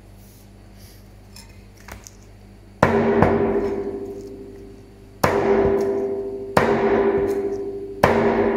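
Meat cleaver chopping through a strip of wild boar ribs on a plastic cutting board: four hard chops, about a second or two apart. Each chop is followed by a metallic ring that fades away.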